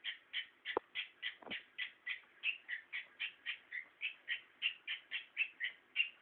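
A pet animal calling over and over for attention: short, high calls about four a second, without a break. Two brief knocks come about a second in.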